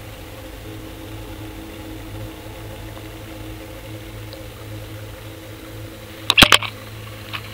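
Muffled steady low hum with a few faint steady tones, heard through the waterproof housing of an underwater camera. About six seconds in comes a quick cluster of sharp knocks from the camera rig, which is snagged among the rocks.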